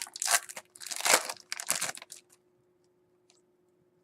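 Trading card pack wrapper crinkling as it is handled, in a few short bursts over about two seconds, then stopping.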